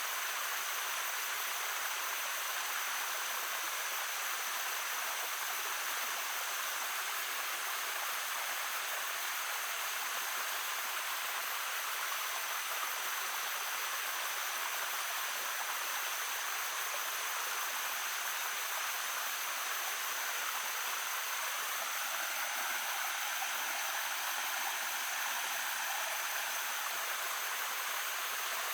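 Small stream babbling steadily over its bed, an even, continuous rush of water.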